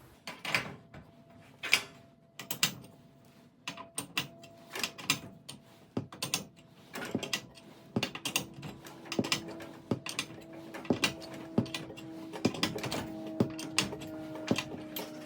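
Steel winding bars knocking and clinking in the winding cone of a garage door torsion spring as the spring is wound up by hand, one or two sharp metallic knocks a second. A faint steady ringing tone underneath grows stronger in the second half.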